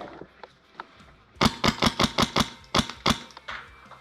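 Airsoft gun firing a quick string of about ten sharp shots, seven in a fast run and then three more after a short pause.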